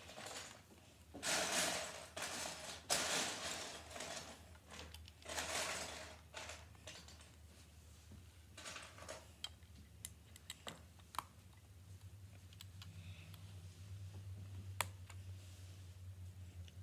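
Plastic LEGO pieces being handled and snapped together: a few rustling, rattling bursts in the first six seconds, then scattered sharp clicks. A low steady hum runs underneath.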